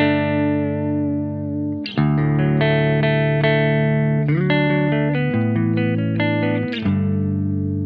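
PRS SE Custom 24 electric guitar played with a clean tone through a Laney Lionheart 20-watt head and 2x12 cabinet. Chords are struck and left to ring, with a new chord about two seconds in, several note changes in the middle, and a last chord ringing out and fading near the end.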